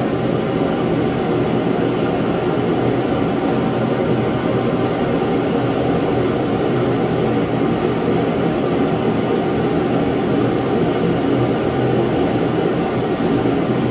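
Propane shop heater running: a steady, loud rushing noise with no breaks.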